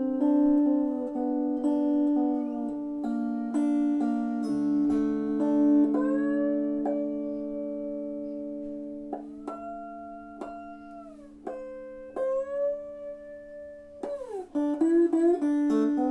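Three-string cigar box guitar in open D (D-A-D) played through an amp on its magnetic humbucker pickup, giving a clean string sound without the knocks of the piezo. The open low strings drone steadily while notes on the top string slide up and down and hold, slide-guitar style.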